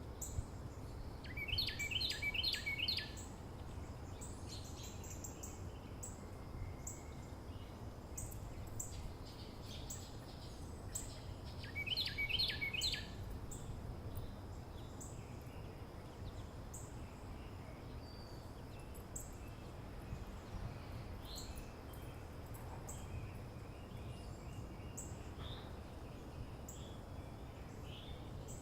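Early-morning suburban ambience: a steady low background rumble under bird song. Short high chirps repeat about once a second, and two louder bursts of rapid trilled notes come near the start and about twelve seconds in.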